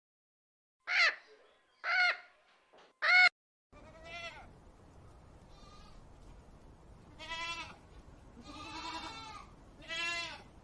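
Bleating livestock: three short, quavering bleats, then after a cut a string of further bleats of varying length over a faint background hiss.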